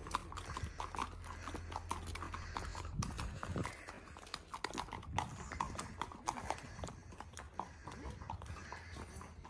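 Horse's hooves clip-clopping at a walk on a hard lane: a steady run of light knocks.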